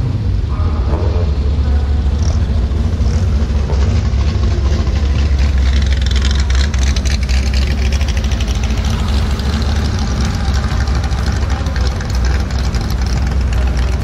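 A car engine idling steadily at a low, even pitch.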